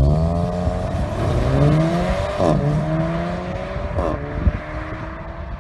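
Racing car engine accelerating hard, its pitch climbing then dropping sharply twice as it changes up through the gears.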